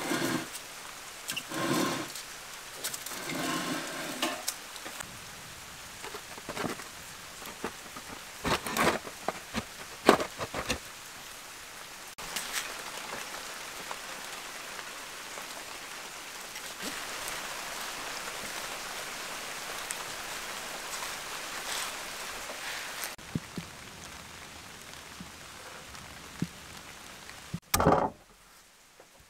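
Hand food-prep sounds: a metal tool scraping and knocking in a wood-fired brick oven, clicks and light knife work on a wooden board, then a sharp knife chop on the board near the end. A steady hiss runs through the middle stretch.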